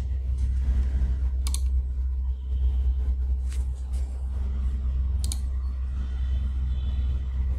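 A steady low hum with a few separate sharp clicks at a computer desk, a close pair about a second and a half in, a faint one in the middle and another pair a little after five seconds.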